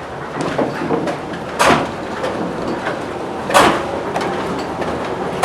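Wind-driven corn-mill machinery running, with a heavy wooden knock about every two seconds over a steady rumble: the knocking drive of the mill's bonker (jog scry sieve).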